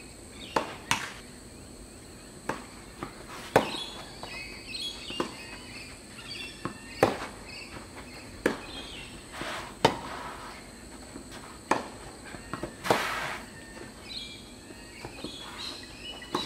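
Tennis rally: a tennis ball struck back and forth by rackets, sharp pops about every second and a half with lighter bounces between. Birds chirp intermittently behind it, over a steady high insect whine, and a longer scraping noise comes about two thirds of the way through.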